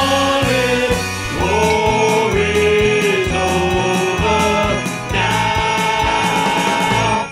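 Polka band music with several men singing long held notes together over a steady beat and bass line.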